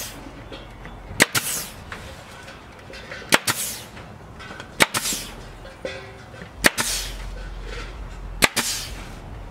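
Pneumatic staple gun firing five times, about every one and a half to two seconds, each sharp crack followed by a short hiss of air, as it drives staples through hardware cloth into a wooden post.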